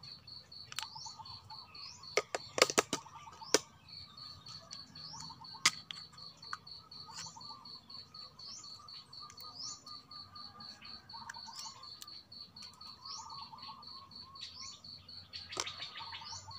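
An insect's steady, rapidly pulsing high trill, with short rising bird chirps repeating about once a second. A few sharp clicks and knocks sound about two to three and a half seconds in and again near six seconds, from a spoon and bottles being handled.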